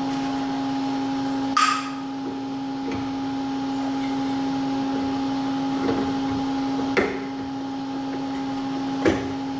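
Three sharp knocks and clinks as a Z-axis stepper motor is handled and set back onto its mount on top of a mill head, over a steady electrical hum.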